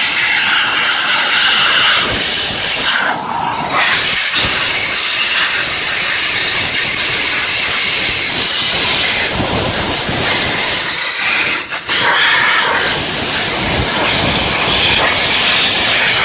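High-pressure steam jetting from the spray wand of a CW-D32 electric steam cleaner onto a car engine: a loud, continuous hiss that briefly drops about three seconds in and again around eleven to twelve seconds.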